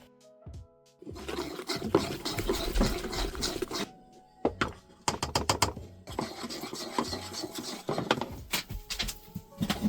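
Rubbing and scraping noise with many sharp clicks over soft background music, with a short lull about four seconds in.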